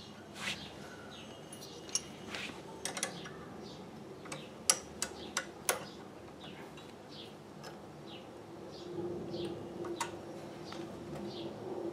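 Sharp metallic clicks and taps from a steel pedal linkage rod and its bolted clamp being handled and adjusted under an industrial sewing machine table, several in a cluster around the middle. A small bird chirps repeatedly in the background, and a faint steady hum comes in about nine seconds in.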